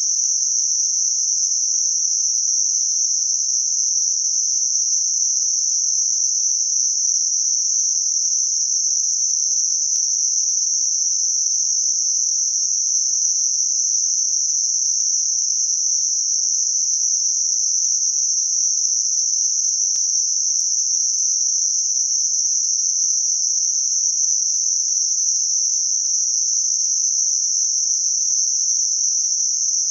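Computer-generated 6 kHz Gaussian narrow-band noise for tinnitus masking: a steady, unchanging high-pitched hiss with nothing in the low or middle pitches.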